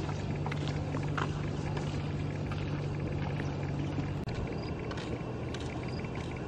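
A steady low engine hum; about four seconds in it changes, and a fast insect chirping starts.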